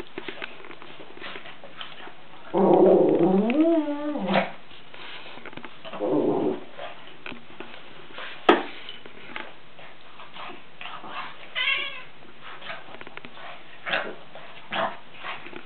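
Domestic cat yowling: a loud call that wavers up and down in pitch for about two seconds, a shorter yowl a couple of seconds later, and a fainter high wavering cry near the end, with small knocks and rustles and one sharp click in between.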